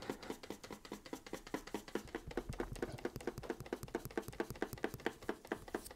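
Electrostatic grass applicator shaken over freshly glued scenery, dispensing 4 mm static grass fibres: a quick, even rattle of light taps, about seven a second.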